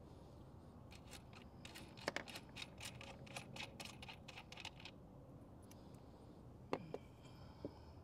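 A quick run of light clicks and taps as the plastic cap and the bolt come off a lithium battery's positive terminal by hand. A few sharper clicks follow near the end.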